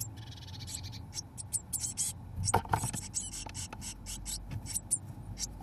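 Blue tit nestlings scratching and shuffling on the moss nest lining, with many short, thin, high begging calls. There is a louder knock about halfway through as a parent arrives at the entrance hole to feed them.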